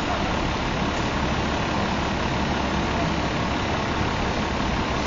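Steady din of a busy city street, dominated by the low hum of an idling engine close by.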